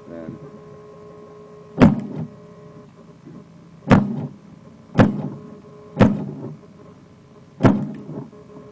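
Radio-controlled model tank firing its main gun five times, each a sharp bang with a short tail, the middle three about a second apart, over a faint steady hum.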